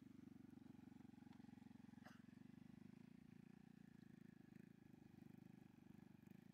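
Small motor scooter engine running steadily, heard faintly, with a fast even pulsing.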